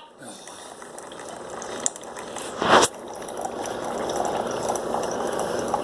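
Mainstays single-serve coffee maker brewing: a crackling hiss and gurgle of hot water streaming through into the cup, growing steadily louder, with one short louder burst partway through. The cup is nearly done.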